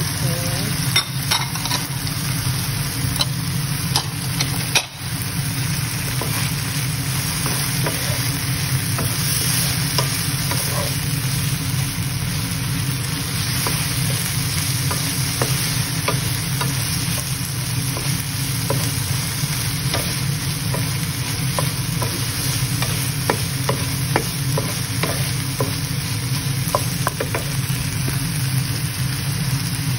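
Chicken, onion and green bell pepper strips sizzling in a nonstick frying pan, stirred with a wooden spatula that scrapes and taps the pan in many small ticks, over a steady low hum.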